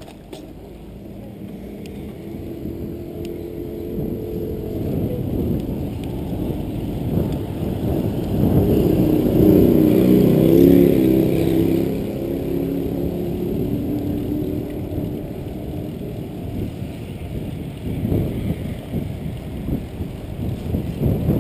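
Wind buffeting the microphone and bicycle tyres rumbling on pavement as the bike rides along, building up over the first several seconds and loudest around the middle.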